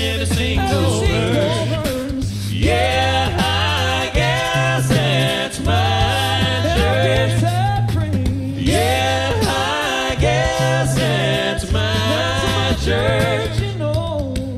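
Male a cappella group singing in close harmony, a bass voice holding low notes under the chords and mouth-made drum sounds keeping the beat.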